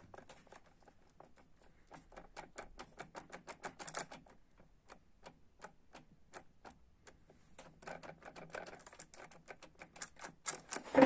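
Quick runs of light metallic clicks and taps from a ČZ 175 type 450 motorcycle engine being worked by hand during inspection, a busy stretch early on, a sparse lull in the middle, and another busy run near the end.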